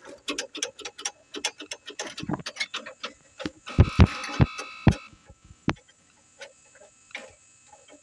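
Metallic clicking and ticking from a bicycle being handled, with a few heavier clanks and a brief metallic ring about four seconds in.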